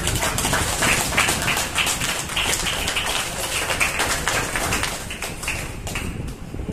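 Audience applauding, a dense patter of many hands clapping that thins a little near the end.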